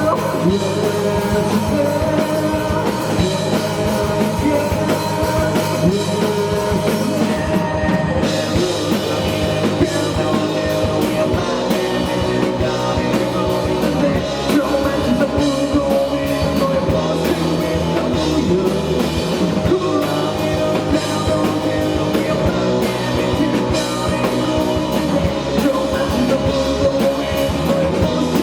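Indie rock band playing live: drum kit and electric guitars with singing, loud and steady throughout.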